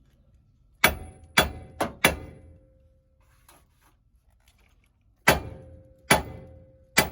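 A hammer strikes the steel steering knuckle of a Chevrolet Silverado seven times, four quick blows and then three more a few seconds later, each one ringing. The blows are meant to shock the upper uniball joint's tapered stud loose from the knuckle.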